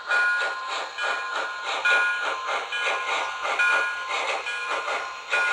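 Steam sound from the onboard speaker of an MTH HO-scale model of the Virginian 2-8-8-8-4 Triplex No. 700 running on track: rhythmic chuffing at about four chuffs a second, with short high tones coming and going over it.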